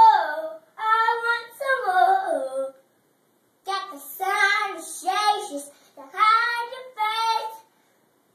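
A three-year-old girl singing in a high voice, in short phrases with the pitch sliding up and down, with a pause of about a second after the first few seconds.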